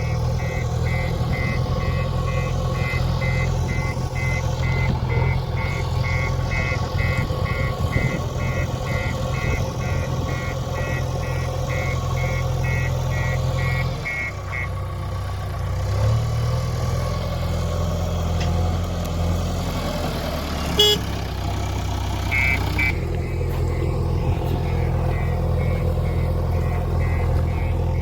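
JCB 3DX backhoe loader's diesel engine running steadily under work, with a high electronic beeper (as from a reversing alarm) pulsing about two to three times a second. The beeping stops about halfway through and comes back more faintly near the end, with a single sharp click between.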